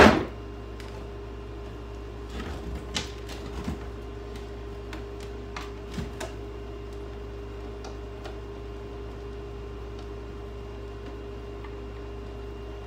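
A steady hum with one clear tone, a sharp knock right at the start, and a few softer knocks and clicks a few seconds in.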